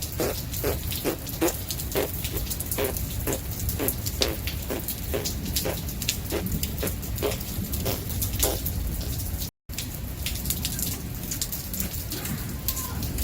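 Steady rain falling, with close drops striking a hard surface about three times a second until about eight seconds in. The sound cuts out for a moment near ten seconds.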